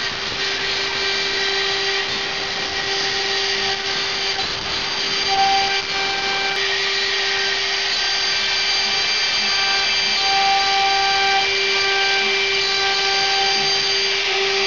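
A power tool or machine motor running steadily with a constant whine, with higher tones coming and going on top.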